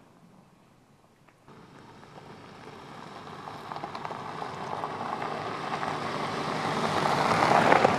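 A VW Passat Alltrack driving toward the listener on a gravel track, its tyres crunching and crackling over loose stones. The noise comes in about a second and a half in and grows steadily louder as the car draws near.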